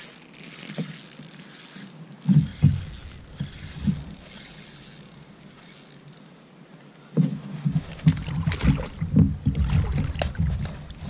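Irregular low knocks and thumps on a fishing kayak while an angler fights a hooked fish on a spinning rod. A short cluster comes about two seconds in, and a denser run starts about seven seconds in, with only a faint hiss between them.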